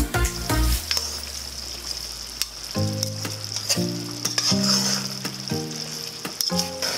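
Diced pork sizzling in a stainless steel pot as its cooking liquid boils off and the meat starts to fry in an oily sauce. A metal spoon scrapes and clicks against the pot now and then as it is stirred.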